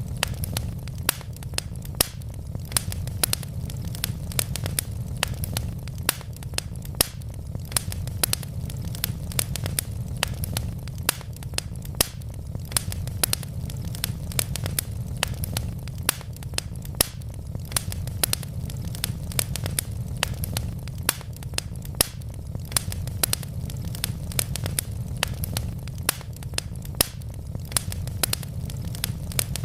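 Wood logs burning in a fireplace, crackling with many sharp pops, several a second, over a steady low rumble.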